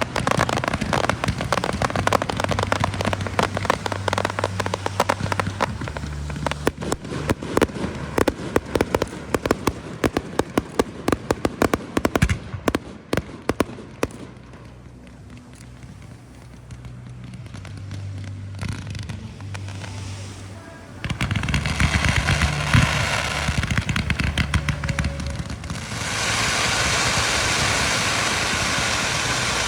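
Fireworks crackling in a dense, rapid patter of small pops, thinning out about halfway through, then picking up again. A steady hiss takes over near the end.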